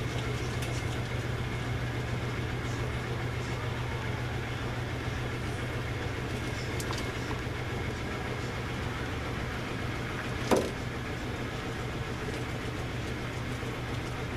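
Steady low machine hum of room equipment running, with one sharp click about ten seconds in.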